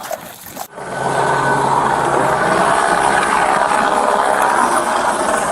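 Police helicopter running overhead, a steady drone of rotor and engine that starts abruptly about a second in.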